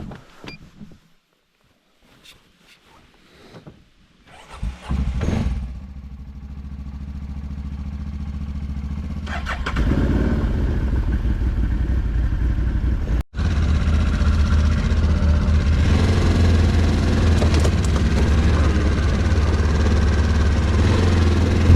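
ATV engine starting about five seconds in, then running steadily at idle with a low, even hum. It gets louder about ten seconds in, and the sound cuts out for a moment near the thirteen-second mark.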